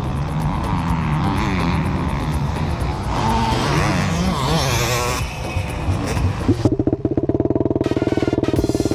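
Motorcycle engines running and revving, pitch rising and falling, then about two-thirds of the way in one engine running loud and steady with a fast, even pulse.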